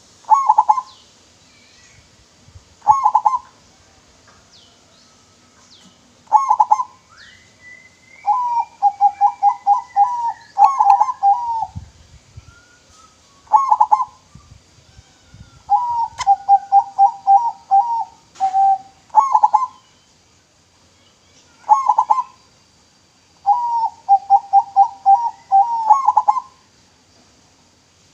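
Zebra dove (perkutut) cooing: short coos every few seconds, alternating with three longer phrases of rapidly repeated coo notes, about four to five a second. Faint high chirps of other small birds behind.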